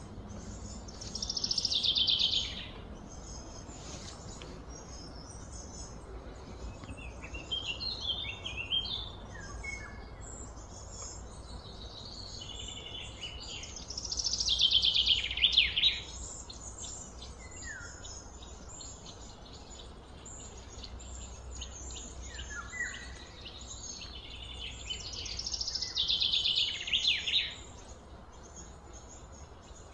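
Birds singing outdoors: a loud song that falls in pitch, repeated three times about twelve seconds apart, with scattered short chirps in between over a steady low hum.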